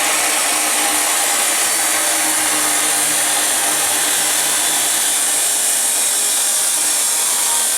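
Angle grinder running steadily against steel, a loud, even grinding hiss.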